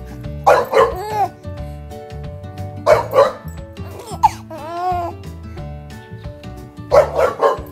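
Bulldog puppy barking and yipping in a few short bursts over background music.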